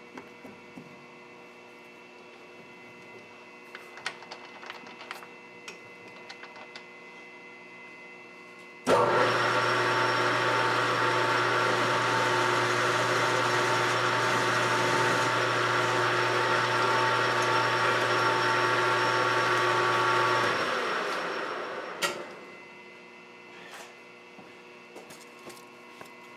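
Metal lathe switched on about nine seconds in, its spindle and three-jaw chuck running steadily for around eleven seconds while a small chamfer is taken off the end of a 4140 steel part, then switched off and coasting down to a stop over a second or two. A few light clicks of tool handling come before it, and a sharp click just after it stops.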